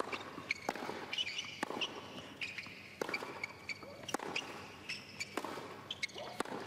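A tennis rally on a hard court: sharp racket-on-ball strikes about once a second, starting with the serve, with ball bounces and short high squeaks of shoes on the court in between.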